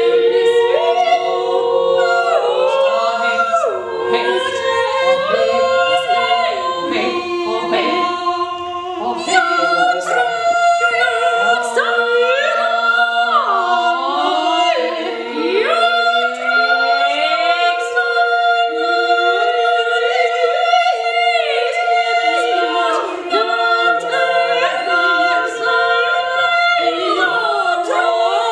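A small ensemble of women's voices singing a cappella in a contemporary style: several voices hold notes against one another in close harmony while others slide up and down between pitches.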